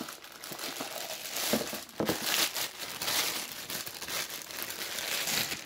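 Clear plastic wrapping crinkling and rustling continuously as hands pull it off a rifle scope.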